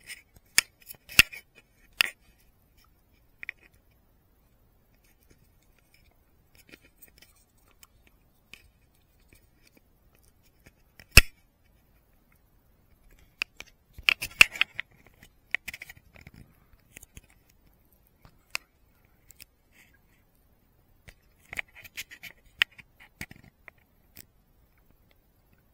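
Sparse sharp clicks and short bursts of small handling noise close to the microphone, as an action camera is handled and its buttons pressed; the loudest is a single sharp click about eleven seconds in, with near silence between the groups.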